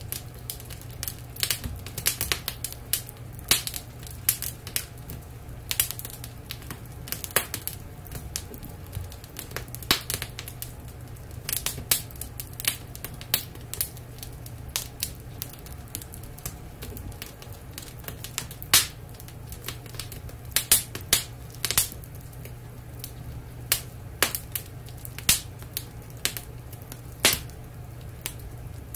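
Wood fire crackling, with irregular sharp pops and snaps, some much louder than others, over a steady low hum.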